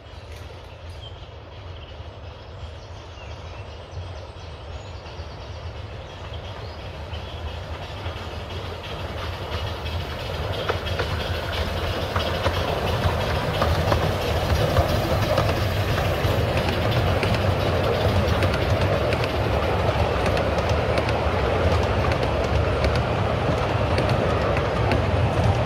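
A 10¼-inch gauge miniature steam train approaching and passing. Its sound grows steadily louder over the first dozen seconds, then the carriages go by with a continuous rumble and rapid clicking of wheels on the rails.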